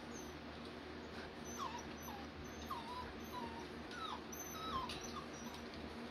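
German Shorthaired Pointer puppies whimpering: a string of about seven short, falling whines starting about a second and a half in, over a faint steady hum.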